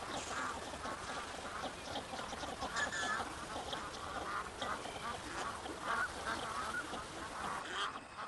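A large flock of ducks calling at once: many overlapping quacks and chatter forming a dense, continuous chorus.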